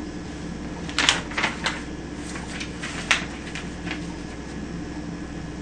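Sheets of paper being handled and slid across a table: a few short rustles and light knocks, with one sharp tap about three seconds in.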